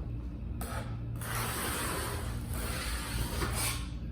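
A continuous scraping, rubbing sound of tile work in a wet mortar bed, starting about half a second in and easing off just before the end.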